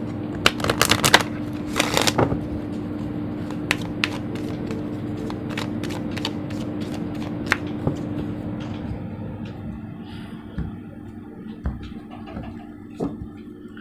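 A deck of oracle cards shuffled by hand, with a quick run of card clicks and flutters in the first couple of seconds, then scattered flicks and slides of cards. A steady low hum sounds underneath.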